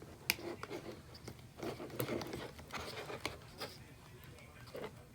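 Sticky slime mixture being stirred in a container, with irregular scraping, clicking and squelching noises as the Tide activator is mixed into the glue and shaving cream.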